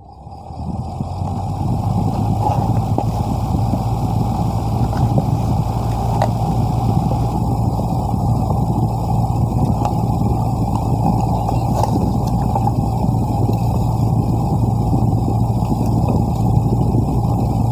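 A motor starts up and runs steadily with a constant low hum, building up over the first second or two.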